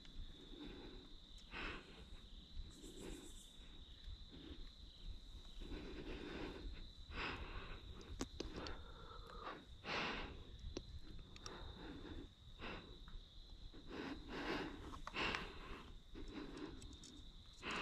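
Soft, irregular rustles and breaths close to the microphone as a bow hunter shifts and steps on frosty grass and dry leaves, with a few small clicks. A faint steady high tone runs underneath.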